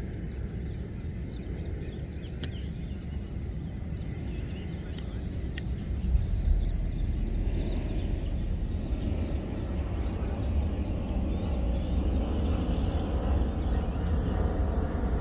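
Steady low outdoor rumble without words, growing louder about halfway through, with a few faint clicks.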